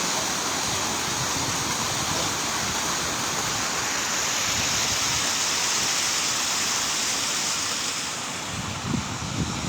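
Steady hiss of heavy rain falling, easing a little about eight seconds in, with low gusts of wind buffeting the microphone near the end.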